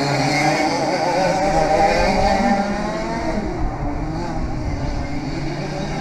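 100cc Parilla reed-valve two-stroke kart engines running on the circuit, their pitch rising and falling as the karts accelerate and pass.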